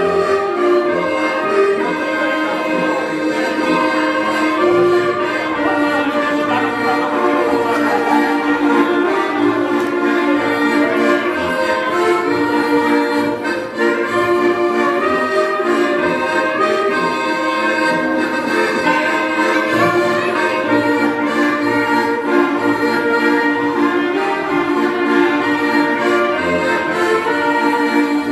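Live band music with trumpet and saxophone playing a melody together over an amplified backing, through PA speakers.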